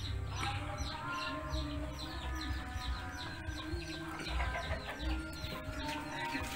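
Busy backdrop of many small birds chirping and chickens clucking, with music playing.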